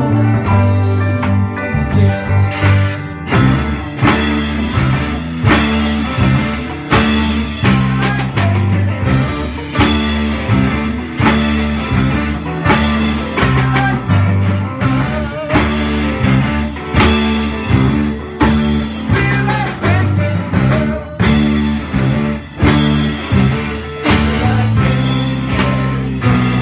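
Rock band playing live: electric guitars and a drum kit with a steady beat. The drums get fuller about three seconds in.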